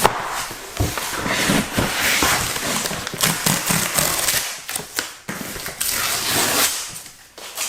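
Packaging being opened and handled: paper and card rustling and crinkling, with many short clicks and taps. It quietens in the last second.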